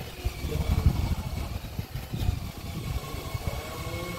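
Wind buffeting the phone's microphone: an uneven low rumble in gusts, strongest about a second in.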